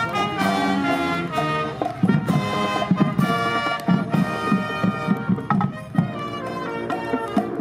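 Marching band playing live as it passes: sousaphones, trumpets and trombones with woodwinds over a steady beat of marching drums.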